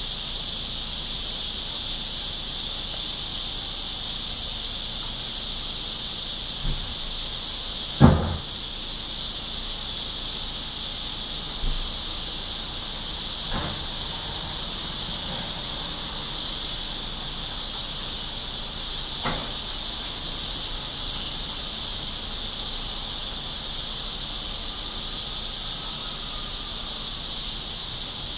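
Steady, high-pitched chorus of insects, a continuous shrill drone. A single sharp knock comes about eight seconds in, with a few faint taps scattered after it.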